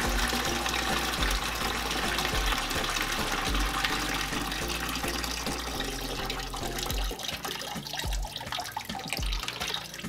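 Water pouring out of a tipped canister filter into a plastic bucket, a steady splashing stream that thins to a weaker, broken trickle over the last few seconds as the canister empties.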